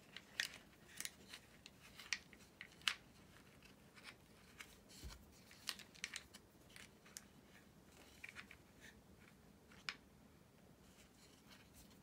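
Scattered small clicks and taps of hard plastic parts knocking together as an RC crawler's transmission is fitted into its chassis. They come thickest in the first three seconds and grow sparser after.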